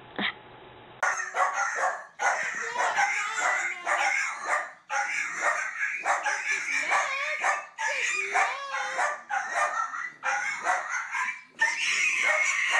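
A dog vocalizing in a rapid string of short calls that bend up and down in pitch, one after another with brief gaps. The calls begin about a second in, after a short click.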